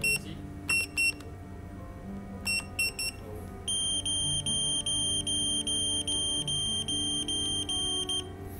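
Hikvision AX Hybrid Pro alarm keypad beeping: a short high beep for each key pressed as the PIN is entered, about six in all. About four seconds in, an even, rapid beeping of about three beeps a second starts: the exit-delay countdown after the system is armed.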